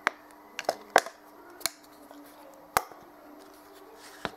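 A few short, sharp plastic clicks and taps, about seven spread unevenly, the loudest about one second and nearly three seconds in, from handling a plastic squeeze bottle of acrylic paint over a foam sponge.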